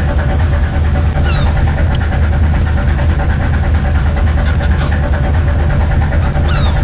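Fishing boat engine running steadily with a loud low drone. A few short, high calls that fall in pitch sound over it, about a second in and again near the end.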